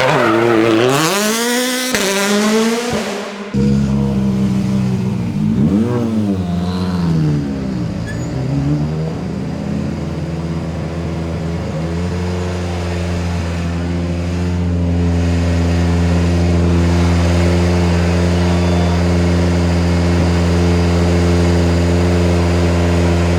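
Rally car engine revving hard, its pitch rising and falling repeatedly through gear changes and bends over the first half. From about halfway a steady low engine drone holds unchanged.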